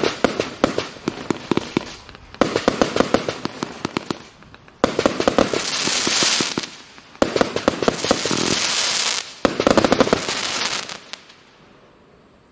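Triplex TXB813 Cowboy Roy firework going off: five volleys of rapid, crackling small bangs, each about two seconds long, one after another. The last one dies away about eleven seconds in.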